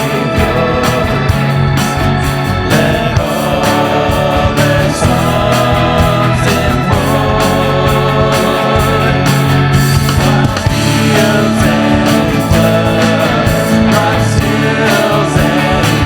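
Worship band music with held bass notes and a steady drum beat.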